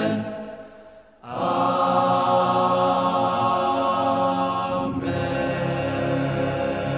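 All-male a cappella group singing held chords in close harmony. A chord fades away in the first second; after a brief gap a new chord comes in and is held, then moves to another sustained chord about five seconds in.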